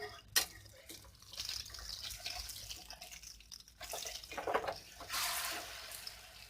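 Egg omelette frying in hot oil in a pan, sizzling with scattered crackles. The sizzle surges louder about five seconds in.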